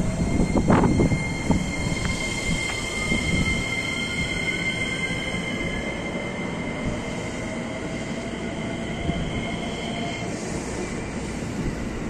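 Electric commuter train pulling away from a standstill at the platform: its motors whine in steady high tones and slowly rising tones as it gathers speed, over a low rumble. There is a single sharp knock about a second in.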